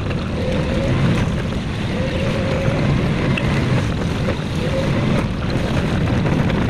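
Car driving along a paved road, heard from inside the cabin: a steady engine and tyre rumble with a faint wavering engine tone and some wind on the microphone.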